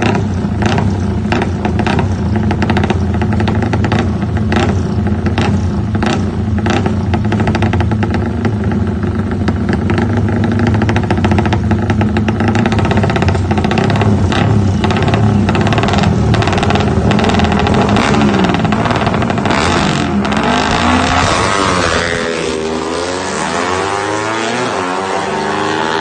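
Drag-racing motorcycle engines running and revving with sharp crackles. Near the end, one bike's engine note rises steeply and then drops away as it accelerates.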